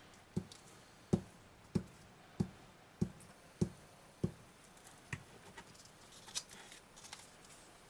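Pritt glue stick rubbed in firm strokes over a strip of card on a cutting mat: seven soft knocks at an even pace, a little under two a second, then a few scattered ones.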